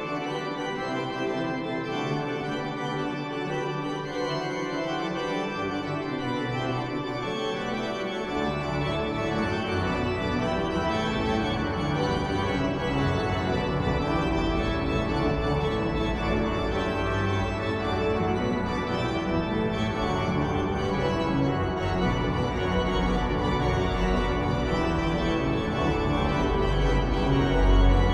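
Pipe organ playing sustained chords on the manuals. Deep pedal bass comes in about eight seconds in and grows heavier toward the end.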